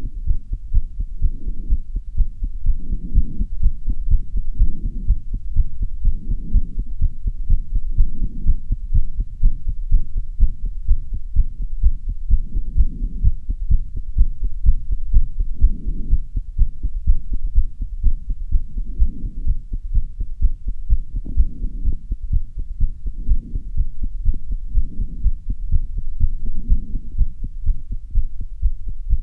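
A person's fast heartbeat recorded on a phone, in quick, regular low beats, raised after half an hour of running up and down stairs.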